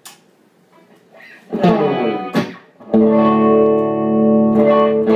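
Mexican Telecaster with Rio Grande Muy Grande pickups played through an Orange OR50 amp on its clean tone. A click is followed by a few quick strums, then about three seconds in a chord is struck and left ringing, and it is struck again near the end.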